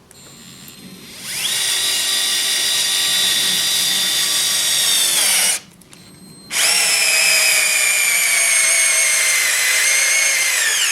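Cordless stick screwdriver motor whining as it drives screws into softwood lumber, in two runs. The first starts about a second in and stops sharply after about four seconds. The second starts about six and a half seconds in, and its pitch sags gradually under load until it cuts off near the end.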